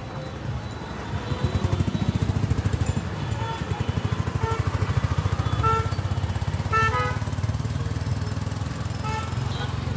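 A small engine running steadily with a fast, even pulse, louder from about a second and a half in, with a few short high-pitched sounds over it.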